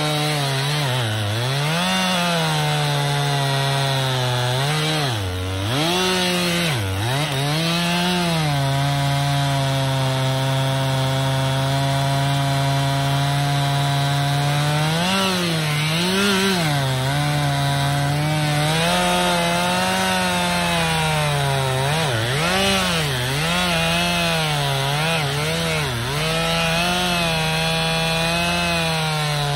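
Stihl two-stroke chainsaw cutting into the trunk of a standing tree to fell it. The engine pitch dips and recovers again and again as the throttle is worked and the chain bites, and holds steady for several seconds near the middle.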